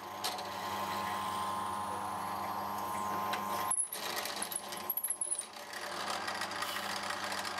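Drill press running, its bit boring a hole through a small block of wood, with a steady motor hum. The sound cuts out briefly just under four seconds in, and a faint high squeal follows.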